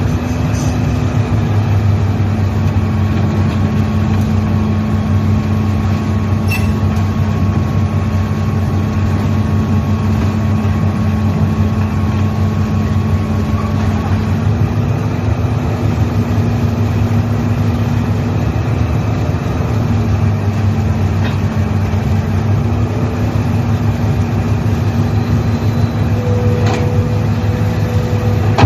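Heavy diesel engine of construction machinery running steadily under load, its pitch stepping slightly up about halfway through and again later. A few faint knocks sound over it.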